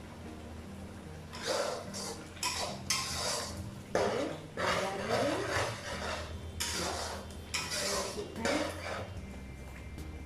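A spatula stirring and scraping in a cooking pan, a run of rough strokes starting about a second and a half in, over a steady low hum.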